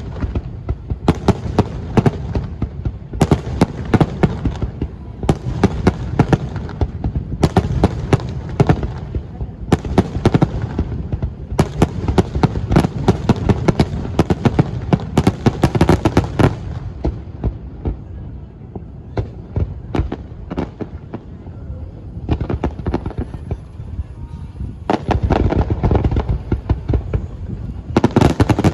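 Fireworks display: volleys of rapid sharp cracks and bangs over deep booms, coming every second or two. It thins out in the middle before a dense barrage near the end.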